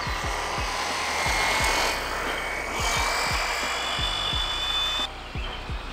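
A 3D-printed electric RC car running at high speed, its motor and herringbone gears giving a thin whine that rises slowly in pitch. Under it are music and deep thumps of bass.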